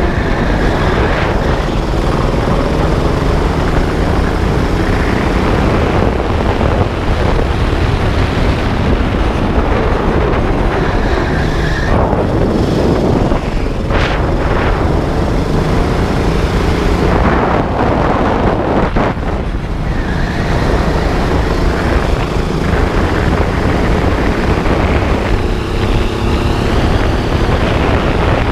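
A 12 hp go-kart engine heard from on board, running hard, its note rising and falling as the kart accelerates and lifts through the corners, with a constant rush of noise over the camera.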